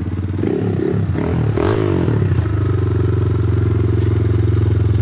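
Kayo supermoto motorcycle engine running: uneven pitch and revs for the first two seconds or so, then it settles into a steady idle.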